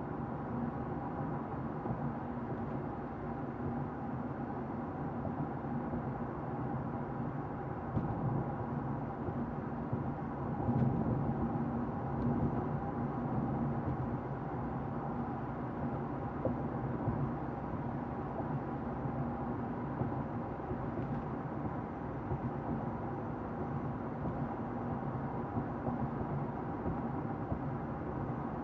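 Steady road and engine rumble heard inside a moving car's cabin, with a few faint bumps along the way.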